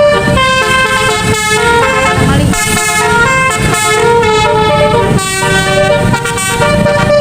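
Telolet bus horn: a multi-tone musical air horn playing a quick melody of held notes, one after another, over a low rumble.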